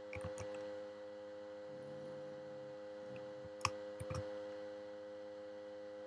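A few sharp clicks from working a computer, two louder ones a little past halfway, over a steady electrical mains hum.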